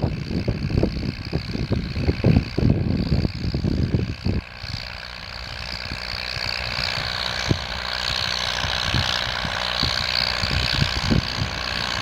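Leyland 462 Synchro tractor's four-cylinder diesel engine running steadily under ploughing load. Irregular low thumps cover it for the first four seconds or so; after that the engine note is steady and grows a little louder toward the end.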